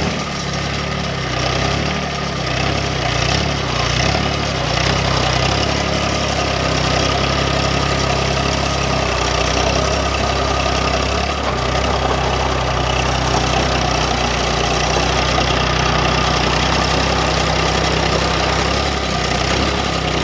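Farm tractor engine running steadily, its note shifting a little about nine seconds in.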